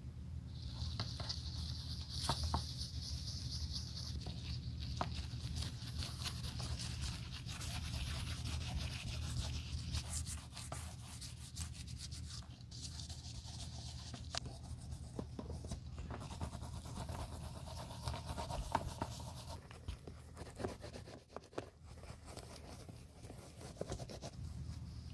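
Nitrile-gloved fingertips rubbing black leather cream into a leather loafer: a soft, continuous hissing rub with scattered small ticks over a steady low hum. The rub is brightest for roughly the first ten seconds and dulls after that.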